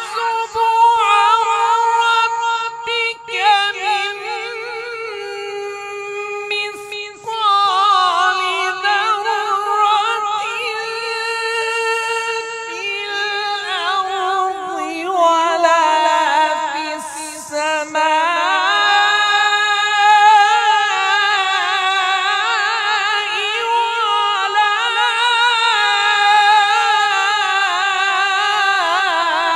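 A man's voice reciting the Quran in Arabic in melodic tajweed style, unaccompanied, in a high register. Long held notes are broken by short breaths, and rapid wavering ornaments on the sustained vowels come through the second half.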